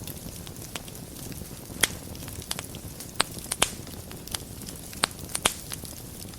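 Wood fire burning in a fireplace: a low steady rustle of flames broken by sharp crackles and pops. One loud pop comes about two seconds in, then a cluster of pops follows in the second half.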